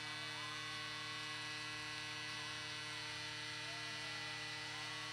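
Steady electrical mains hum: a constant low buzz made of several fixed tones, with faint wavering tones above it.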